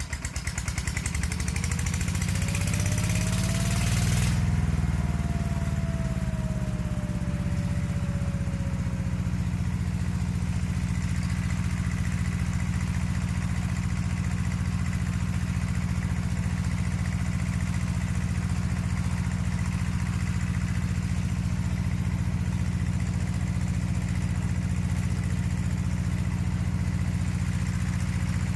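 Walking tractor's single-cylinder diesel engine running up to speed just after catching, then running steadily. A whine rises and falls over the first several seconds, and a hiss cuts off suddenly about four seconds in.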